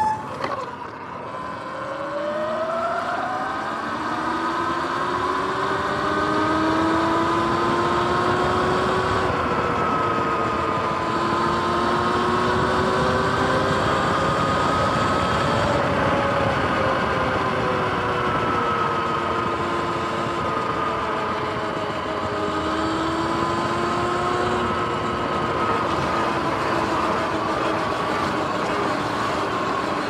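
Sur-Ron X electric dirt bike's motor and drivetrain whining while riding, the pitch rising as it accelerates and then drifting up and down with speed, over steady wind and tyre noise. A sharp knock sounds right at the start.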